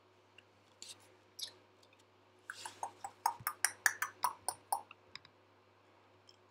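A run of sharp clicks and taps, about a dozen in two seconds, after two single clicks a second or so earlier, over a faint steady electrical hum.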